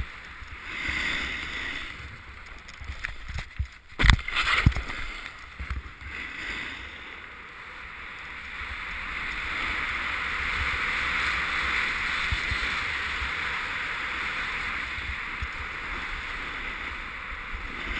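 Rushing hiss of a rider sliding over packed snow on a ski run, building and holding steady through the second half. A few sharp knocks about four seconds in.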